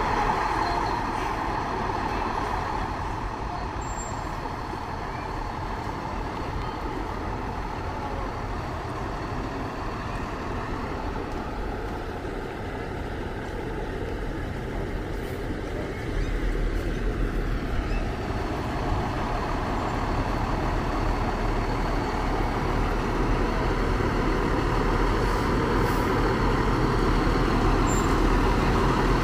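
Fire trucks rolling slowly in a line, their engines rumbling steadily. The rumble grows louder in the second half as the lead truck draws near.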